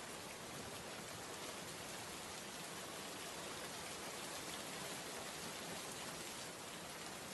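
Heavy rain falling steadily: an even, unbroken hiss of many drops, with no pauses or gusts.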